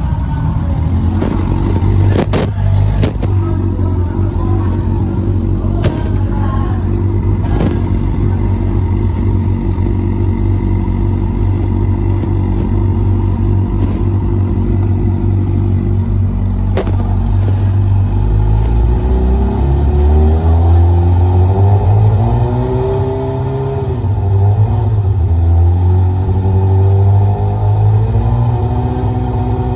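Suzuki GSX-R600 inline-four engine starting and running at a steady idle, then revved up from about halfway through, its pitch rising and falling. It is running on a freshly fitted charging coil while the battery voltage is tested.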